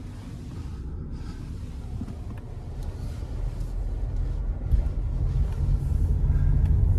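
Car driving, a steady low rumble of engine and road noise that grows gradually louder.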